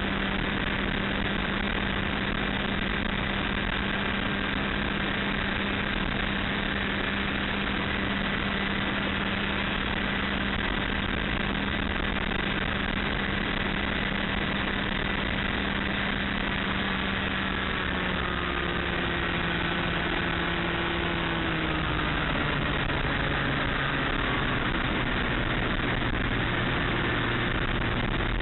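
Ultralight aircraft's engine and propeller running steadily with wind rush, heard from the cockpit. About two-thirds of the way through, the engine note falls to a lower pitch as the engine slows.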